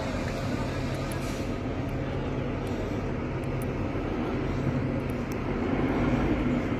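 A train running steadily: a low mechanical hum under an even rumble, getting a little louder near the end.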